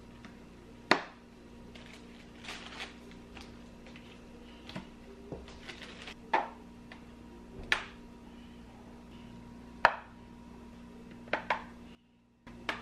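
Small fridge magnets clicking onto a stainless steel refrigerator door one at a time, about six sharp clicks spread out, with soft rustling of plastic packaging between them.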